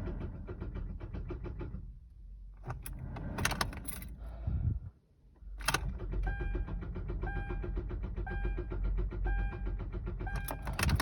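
A car's starter chattering in fast, even clicks as the key is turned and the engine fails to crank, with a dashboard warning chime repeating about once a second in the second half. The noise is taken for the sign of a dead or dying battery.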